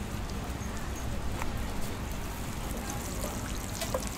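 Thin scallion-pancake dough laid into an oiled griddle pan, frying in the oil with a light sizzle and a few small crackles, over a steady low background hum.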